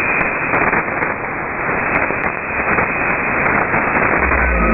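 Shortwave radio static and hiss in a narrow band, as heard through an SDR receiver in upper-sideband mode: the Radio Thailand signal on 9390 kHz has faded down into the noise. A low tone comes in near the end as the broadcast's music returns.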